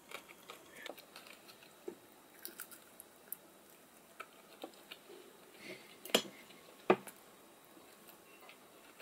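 Eating at a table: quiet chewing and small clicks of metal chopsticks against ceramic dishes, with two sharper knocks a little under a second apart past the middle.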